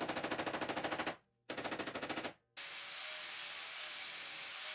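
Two short bursts of rapid, even chatter from a power tool on the steel rocker panel. Then, about two and a half seconds in, an angle grinder grinds steadily on the welded rocker, a loud high hiss over a faint motor whine.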